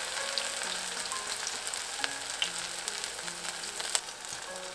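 Shepherd's purse fritters deep-frying in hot oil: a steady sizzle with scattered crackles, and one sharp click near the end.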